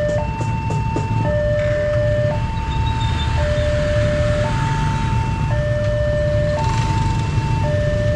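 Electronic railway level-crossing alarm sounding its two-tone warning, a higher and a lower tone alternating about once a second, the signal that the crossing is closed for a train. A low rumble of idling motorcycle and car engines runs underneath.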